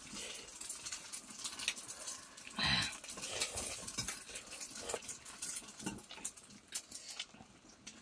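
Egg noodles being eaten from a metal bowl: slurping and chewing, with a fork clicking against the bowl. The loudest slurp comes about three seconds in.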